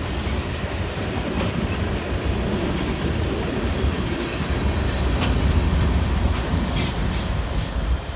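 Freight train of loaded grain hopper cars rolling past: a steady rumble of wheels on rail, with clicks over rail joints and a brief wheel squeal now and then.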